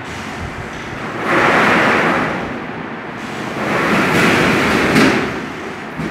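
Street traffic noise, with two vehicles passing by one after the other, each swelling and fading over about a second and a half.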